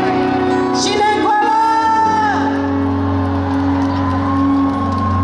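Live pop band music with singing: a long held sung note about a second in, then a sustained chord over a steady bass.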